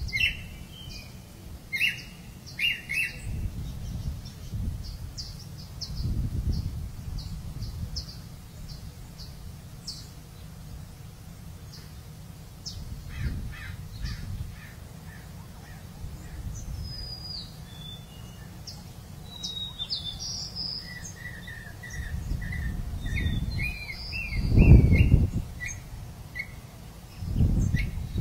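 Wild birds chirping and calling in many short notes, with low rumbles coming and going, the loudest about three seconds before the end.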